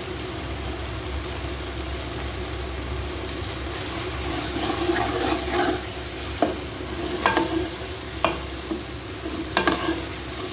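Aloo matar curry sizzling in a cooking pot, with a spoon stirring it and knocking sharply against the pot four times in the second half.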